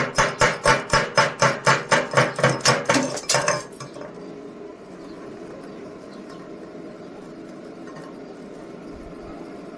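A hammer striking metal in rapid, even blows, about four a second, that stop about three and a half seconds in; a steady low hum follows.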